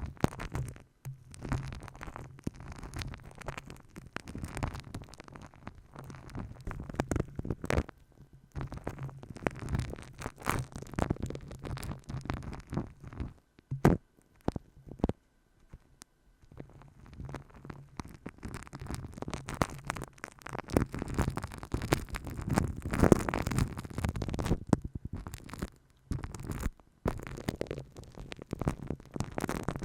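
Close-miked ASMR trigger sounds: irregular rubbing and scratching on the microphone, broken by sharp taps, with a couple of short pauses.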